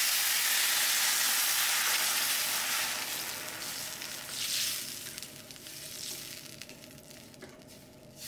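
Water poured into a hot stainless steel skillet of browned meat, hissing and sizzling loudly. The sizzle dies away after about three seconds as the water cools the pan, with faint clicks of chopsticks stirring.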